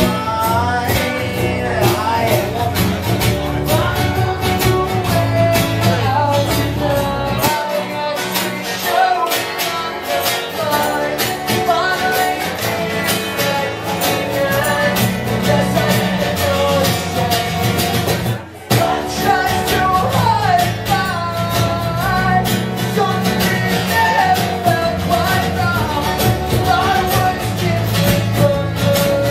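Acoustic band playing live: strummed acoustic guitars and a cajón under a man's lead vocal. The low end drops away for a few seconds about eight seconds in, and the whole band stops together for a moment at about eighteen seconds before coming back in.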